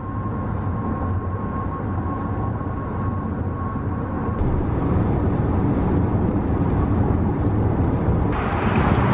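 Steady low rumble of a moving car's road noise, shifting abruptly about four seconds in and again near the end.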